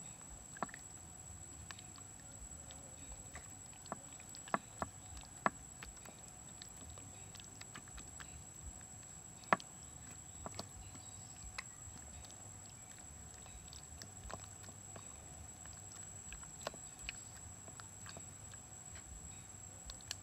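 Wet squelching and sticky clicks of bare hands rubbing a thick marinade paste into raw quails, in irregular small squishes with a few sharper slaps. A steady high-pitched whine sounds throughout.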